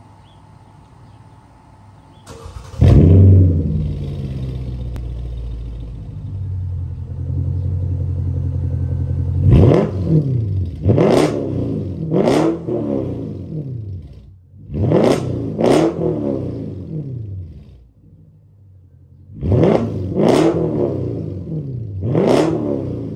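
2009 Mercedes-Benz S550's 5.5-litre V8 warm-starting about two seconds in through a muffler-deleted exhaust (primary cats, resonator and factory X-pipe kept), settling into a steady idle. It is then revved in about eight short throttle blips in three groups, each rising and falling back to idle.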